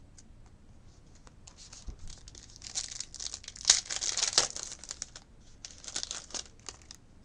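A trading card pack wrapper being torn open and crinkled, loudest about halfway through.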